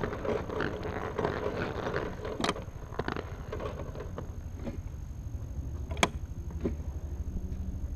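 An old go-kart coasting downhill on asphalt with its engine dead: a steady low rumble of the wheels and frame on the road surface, with a few sharp clicks and knocks from the kart, one louder near the end.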